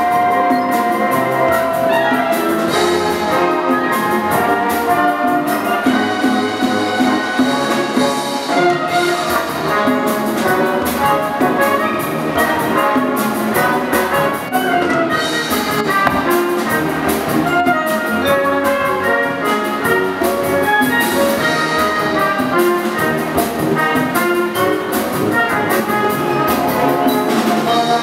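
Youth wind band playing live, brass to the fore, with trumpets and trombones carrying a continuous run of notes.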